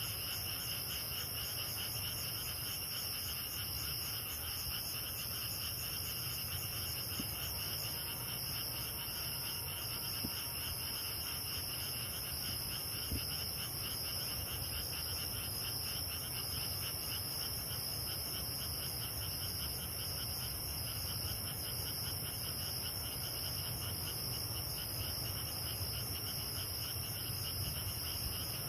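Night chorus of crickets and other grass insects with frogs calling: several steady high trills layered with a fast, even pulsing chirp, over a low steady hum.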